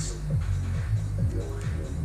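Electronic background music with a repeating falling bass note at an even beat.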